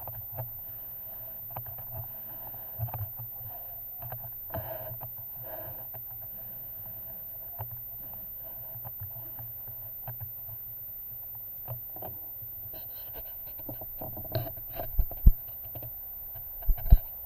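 Handling noise picked up by a camera mounted on an air rifle's scope: scattered small clicks over a low steady hum. A quick run of clicks comes later, then two heavy low thumps near the end, about two seconds apart.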